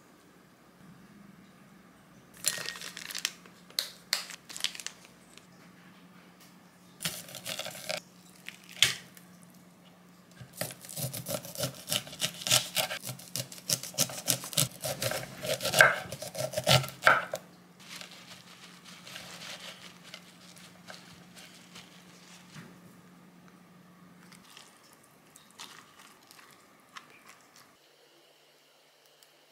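Kitchen knife slicing kernels off a cob of sweet corn on a wooden cutting board: a run of quick, sharp strokes, about three or four a second, lasting several seconds near the middle.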